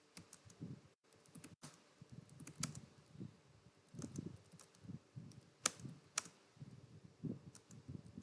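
Computer keyboard being typed on: faint, quick, irregular key clicks with a few louder strokes, while home-row keys and the space bar are practised in a typing drill.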